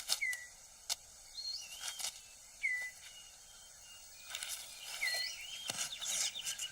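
Rainforest floor sounds: short crackles and rustles of leaves and twigs as a male six-plumed bird of paradise clears his display ground, with a short falling bird whistle repeating three times, about every two and a half seconds.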